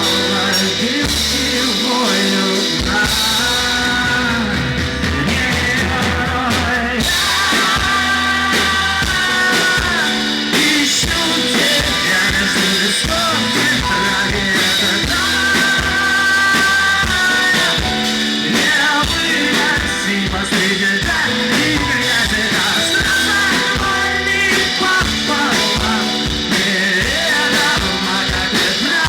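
Live rock band playing loud and steady, with drum kit, bass and guitars.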